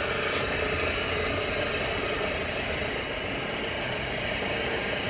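RV fresh-water pump motor switching on and running steadily, a light click about half a second in. It is pumping only air so far, with no water coming through yet while one line is still disconnected.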